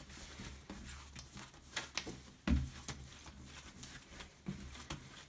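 Hands shaping a ball of bread dough on a wooden table: soft rubbing and dragging of the dough over the wood, with a few light pats and a dull thump about two and a half seconds in.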